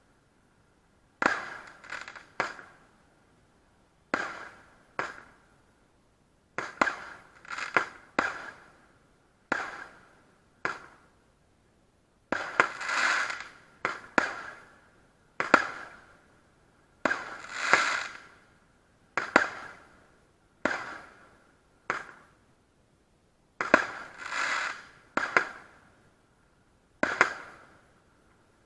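Category F2 consumer fireworks going off: a run of sharp bangs one to two seconds apart, some in quick pairs or clusters. Each bang trails off over about a second.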